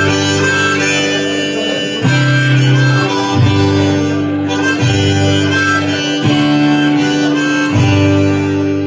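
Harmonica played in a neck rack over a strummed acoustic guitar, an instrumental folk intro with held harmonica notes and chord changes about every second and a half.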